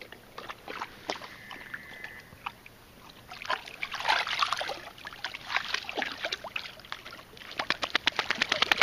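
Weimaraner lapping river water: wet slurps and splashes in bursts, with a fast even run of laps near the end.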